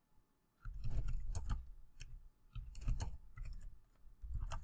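Typing on a computer keyboard: an irregular run of keystrokes that starts a little under a second in.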